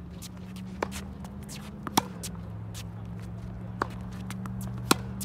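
Tennis rally: four sharp pops of racket strings striking the ball, the two loudest (close hits) about two and five seconds in, with fainter hits from across the court between them. Shuffling sneaker footsteps and a steady low hum underneath.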